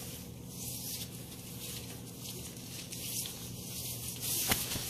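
Rustling and rubbing of fabric as dogs and a child scramble about on a couch, with one sharp tap about four and a half seconds in.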